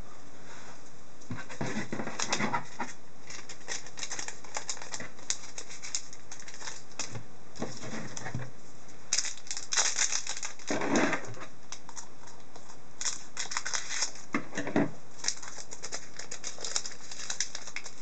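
Foil hockey-card pack wrapper crinkling as it is torn open, and the cards rustling and clicking as they are handled, in irregular bursts.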